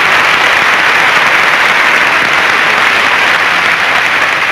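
A large concert audience applauding steadily, a dense wash of clapping that eases slightly near the end.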